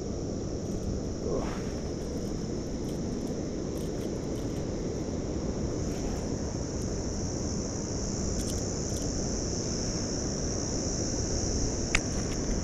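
Steady high-pitched insect buzz, a little louder about two-thirds through, over a low steady rumble, with one sharp click near the end.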